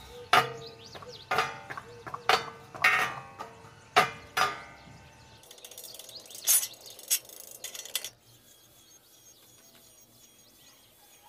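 Iron grill parts clanking: about six sharp metallic strikes roughly a second apart, each ringing briefly, then a few lighter clinks before it goes quiet near the end.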